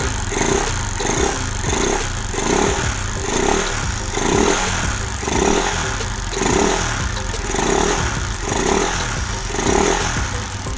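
Air-cooled single-cylinder motorcycle engine idling, its sound swelling and fading about twice a second. It is running on a newly replaced ignition coil whose spark is now strong, fitted because the engine kept dying at idle once hot.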